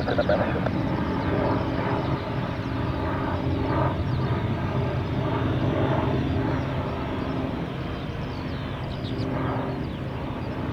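Aircraft engines running with a steady drone, easing off slightly in the second half.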